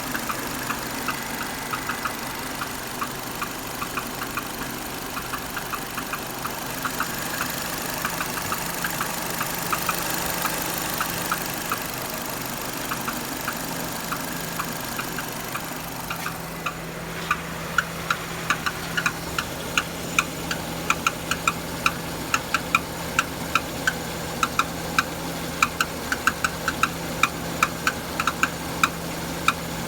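Renault Duster's 2.0 F4R petrol engine idling warm, with a quick, uneven tapping and clicking from the automatic gearbox area, which gets sharper and louder about halfway through. The owner suspects a failing flywheel plate (flexplate).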